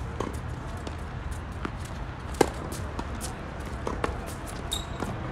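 Tennis rally on a hard court: racket strings striking the ball, with a loud close hit about two and a half seconds in and fainter hits and bounces from farther off. A brief high squeak comes near the end.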